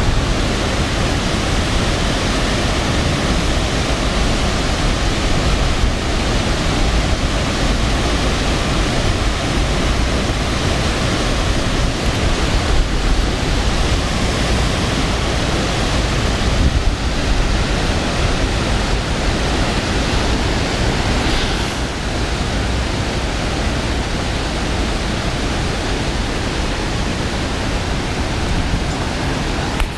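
Steady rush of river water pouring over a low weir, an even, unbroken noise.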